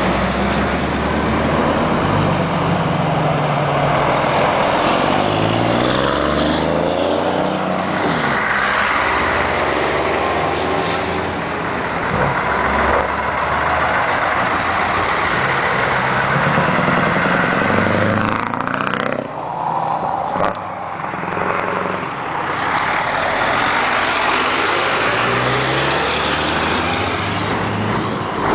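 Volvo FH tractor unit's diesel engine pulling hard through the gears, its pitch climbing in steps and dropping back at each shift, the exhaust stacks loud and smoking.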